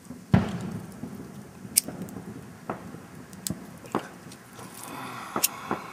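A sharp knock about a third of a second in, then scattered light clicks and taps, like handling noise.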